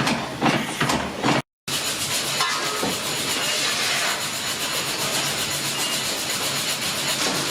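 Fowler steam ploughing engine's exhaust beating steadily at about three beats a second. After a cut, steam hisses steadily and loudly.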